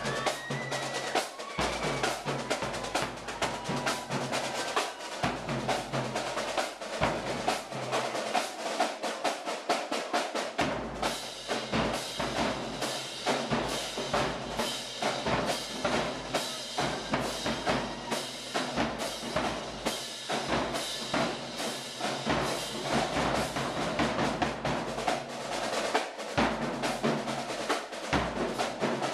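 Drumline with large bass drums playing a fast, driving rhythm of rapid drum strikes. The playing grows fuller, with more low drum hits, about eleven seconds in.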